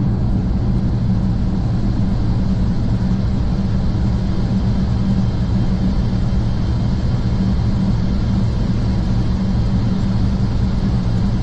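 Airbus A400M's four turboprop engines and propellers droning steadily, heard inside the cockpit on final approach, with a constant low multi-tone hum over a noisy rush.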